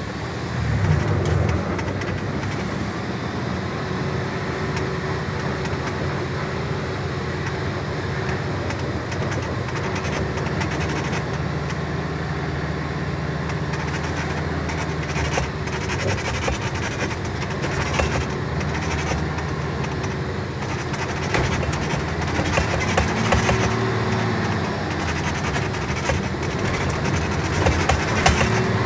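Heavy truck running steadily down a gravel road, heard from inside the cab: a low engine drone with frequent rattles and knocks.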